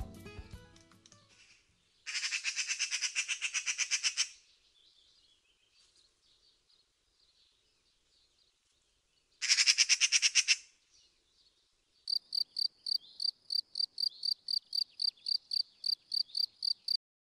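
High-pitched bird chirping: a fast trill about two seconds in, a shorter trill near ten seconds, then from about twelve seconds a steady run of clear high chirps, about four a second, that stops shortly before the end.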